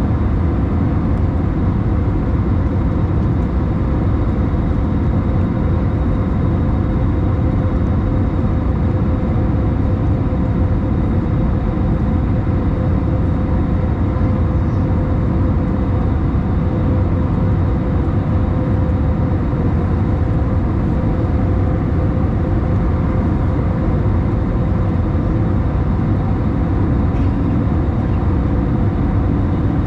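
Steady cabin noise of an Airbus A321 climbing after takeoff: a constant engine and airflow roar with a steady hum running through it.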